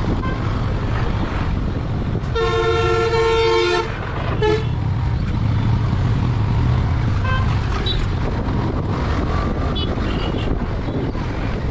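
Steady rumble of a moving motorcycle's engine and wind. A vehicle horn honks about two seconds in, once for about a second and a half, then gives a short toot just after.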